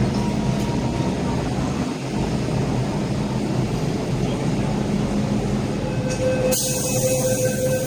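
Underground metro platform sound: the steady rumble and hum of an MTR train, running on without a break. About six and a half seconds in, it turns brighter and hissier, with a steady mid-pitched tone.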